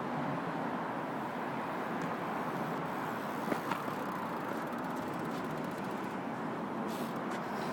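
Steady background noise, with a couple of sharp clicks about halfway through.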